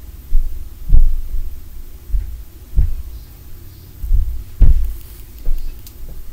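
Dull, muffled thuds coming through the building, like heavy footsteps or stomping from a neighbour's unit. They come unevenly, a little more than one a second, with the heaviest two about a second in and just past the middle.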